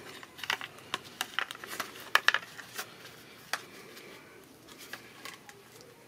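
Scattered clicks and taps of hard plastic as the Nissan Versa's liftgate handle trim and its switch are handled in gloved hands. The clicks come thickest in the first three and a half seconds, with the loudest pair a little after two seconds, then thin out to a few faint ticks.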